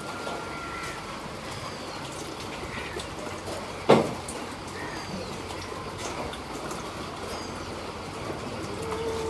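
Small birds chirping now and then with short, faint calls, and one sharp knock a little under four seconds in.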